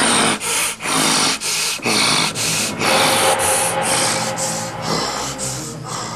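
Heavy, hissy breathing close to the microphone, about two breaths a second, over faint background music.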